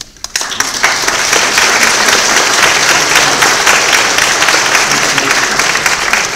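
Audience applauding loudly, a dense, steady clapping that starts just after the beginning and holds until it dies away at the end.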